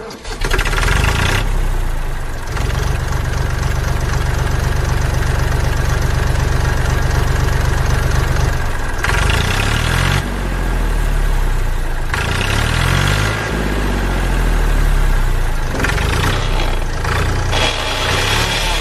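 Tractor engine sound running steadily at a low pitch, then revving up and down several times from about nine seconds in.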